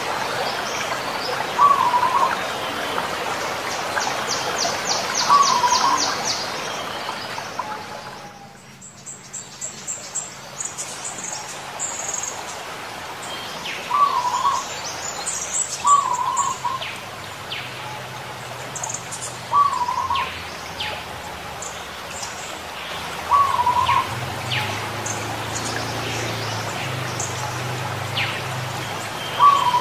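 Zebra doves (perkutut) giving short cooing calls, one every few seconds, with higher chirps and a quick trill from other small birds over a background hiss.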